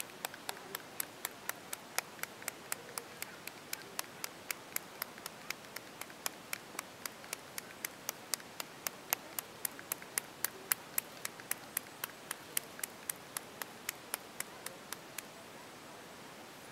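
Hand clapping in a steady, even rhythm of about four claps a second, stopping near the end.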